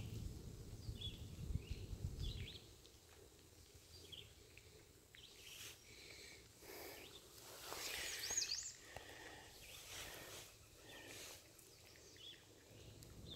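Quiet outdoor ambience with faint, scattered bird chirps, the clearest about eight seconds in. A low rumble of handling noise runs through the first couple of seconds.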